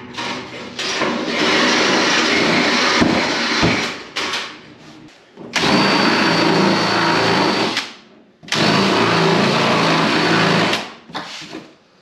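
Cordless drill running in three long bursts, boring holes through a plastic race-car nose cover, with short pauses between.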